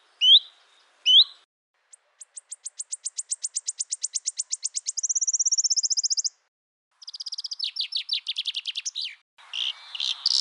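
Birds singing: two short rising calls, then a trill of quick notes that speeds up and grows louder into a fast buzzing trill. After a brief pause comes another trill with falling notes, and several mixed calls near the end.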